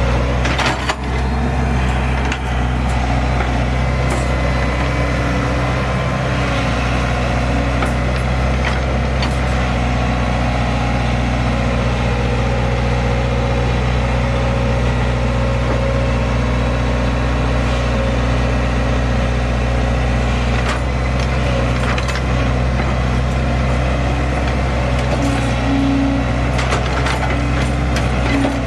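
Excavator's diesel engine running at a steady, unchanging speed, with occasional sharp cracks and knocks.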